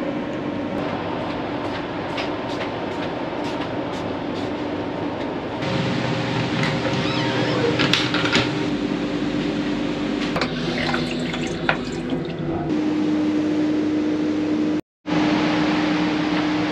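Steady rushing noise with a low hum inside a railway sleeper carriage. It gets louder about six seconds in, with scattered clicks and knocks, and cuts out for a moment near the end.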